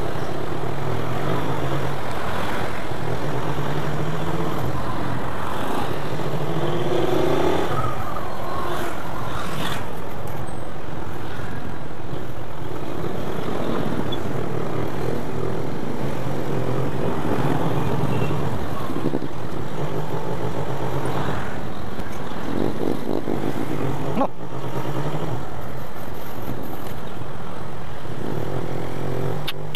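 Motorcycle engine running as the bike rides along in traffic, over a steady rush of wind and road noise.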